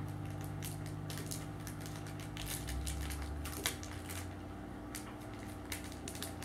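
A small clear plastic jewelry bag crinkling and crackling in the hands, with light irregular clicks, as a pendant necklace is worked out of it.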